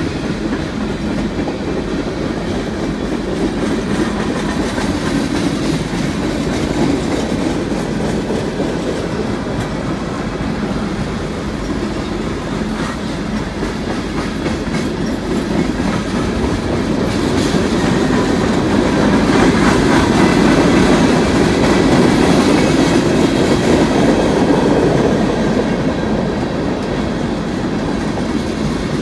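Norfolk Southern freight train cars rolling past, with steady rumble and wheels clacking over the rail joints. The train grows louder for several seconds about two-thirds of the way through, then settles back.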